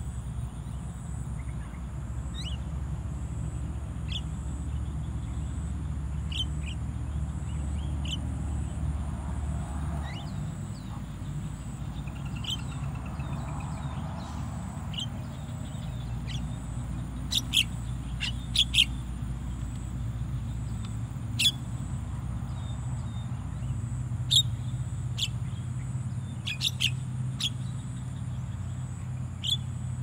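Javan mynas giving short, sharp calls here and there, more often and louder in the second half, over a steady low rumble.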